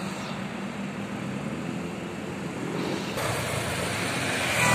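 Road traffic noise: the steady hum and tyre noise of vehicles on the road. About three seconds in it changes abruptly to louder, hissier traffic noise.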